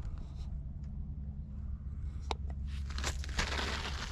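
Wind rumbling steadily on the microphone, with a sharp click a little over two seconds in and a rustling, crackling noise in the last second or so.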